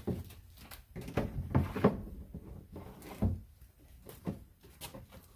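Handling noise: a few dull knocks and rubbing as a hose is laid into a plastic tub, with the loudest knocks between about one and a half and two seconds in.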